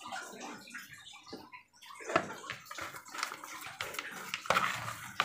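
Plastic spatula stirring and pressing damp fish-bait dough in a plastic bowl: irregular wet scrapes and clicks that start about two seconds in.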